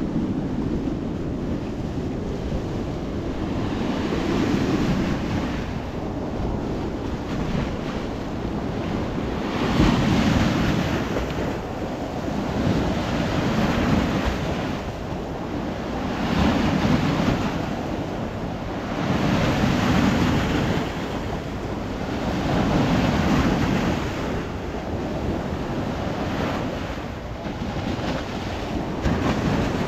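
Sea waves breaking and washing up stepped concrete sea-wall steps, surging every few seconds, with wind rumbling on the microphone.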